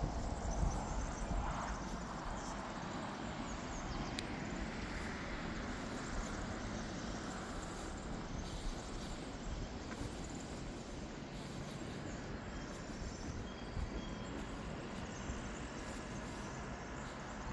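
Steady outdoor ambience, a constant low rumbling noise, with faint birds chirping now and then.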